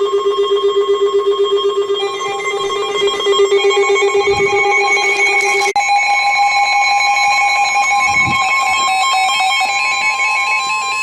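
Emergency Alert System alert tones ahead of a new warning. A rapidly pulsing low electronic tone sounds for about the first six seconds, with quickly stepping higher tones joining about two seconds in. Then a steady higher tone plays with the stepping tones and stops abruptly.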